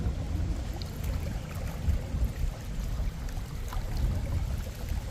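Wind buffeting the microphone, a continuous low rumble that swells and dips, with a few faint ticks from hands packing bran groundbait onto a fishing feeder.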